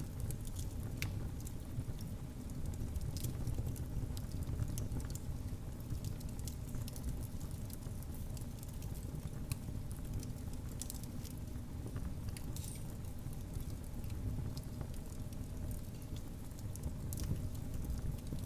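Fire burning in a fireplace: a steady low rumble with scattered sharp crackles and pops at irregular intervals.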